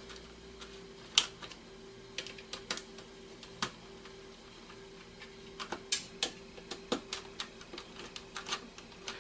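Irregular small clicks and taps of hand tools and metal parts against a Blu-ray drive's casing as it is being taken apart, over a faint steady hum.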